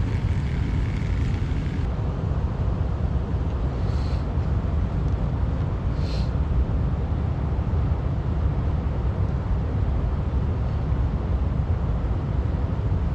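Steady low rumble of water pouring through a spillway, with two brief high chirps about four and six seconds in.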